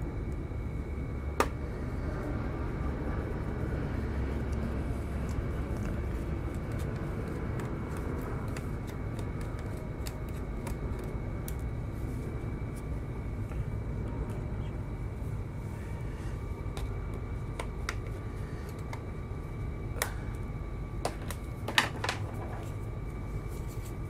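Small clicks and taps from a precision screwdriver and hands working on a laptop's metal bottom panel, over a steady low hum with a faint whine. There is one louder click about a second and a half in, and a cluster of sharp clicks near the end.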